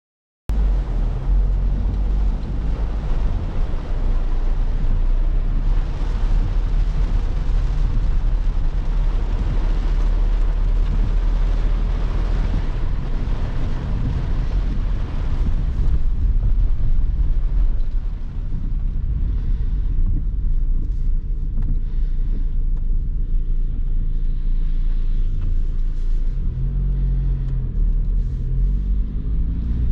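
Ford Transit Custom diesel van driving on a rain-soaked road: a steady low engine and road rumble with a hiss of water and tyre spray, heavier in the first half. Near the end the engine note rises as the van picks up speed.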